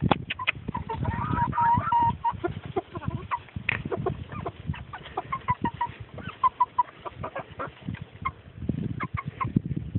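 Chickens clucking, many short overlapping calls, with frequent soft low knocks underneath.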